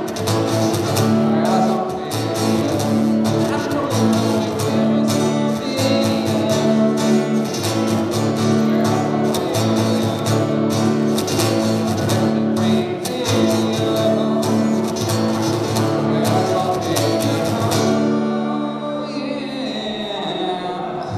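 Acoustic guitar strummed in a steady rhythm, amplified through a PA. Near the end the strumming stops and a last chord rings out as the song finishes.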